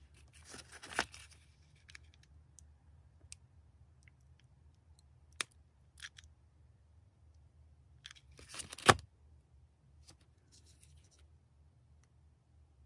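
Handling noise from a metal barrette clip and ribbon: two short spells of rustling, each ending in a sharp click, about a second in and, louder, about nine seconds in, with a few small clicks between.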